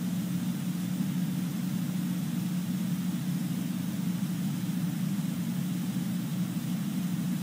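Room tone: a steady low hum with a faint hiss underneath, unchanging throughout.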